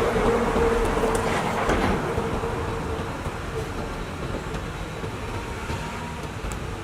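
Heavy diesel machinery running, a CAT 320 excavator at work, a steady rumble with a high whine that fades out about halfway through as the sound eases off.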